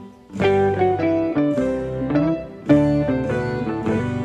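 Instrumental background music: a light melody of short, separate pitched notes over lower sustained notes. It breaks off for a moment at the start, then starts a new phrase a little before three seconds in.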